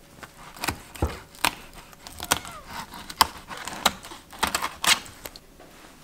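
Fillet knife cutting a crappie fillet free along the backbone on a plastic cutting board: a string of sharp, irregular clicks and knocks as the blade works through the bones and taps the board, stopping about five seconds in.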